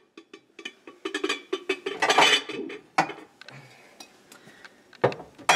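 A glass casserole lid and baking dishes clinking and knocking as they are handled on a cabinet shelf, with a sharper knock about three seconds in.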